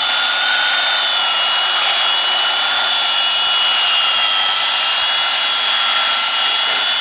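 Small two-stroke chainsaw held at steady high revs, cutting through a wooden slab, with a steady high whine over the engine noise.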